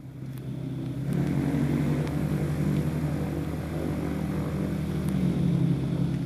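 AutoGyro MTO Sport gyroplane's Rotax flat-four engine and pusher propeller running steadily at taxi power; the engine gets louder about a second in and then holds its note.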